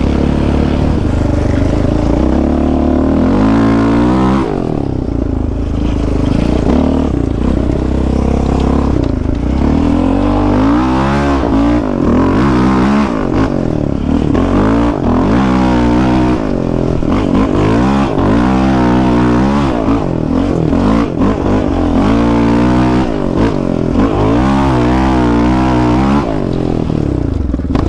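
Yamaha Raptor 700 quad's single-cylinder engine, ridden with the throttle worked on and off so the engine note rises and falls again and again.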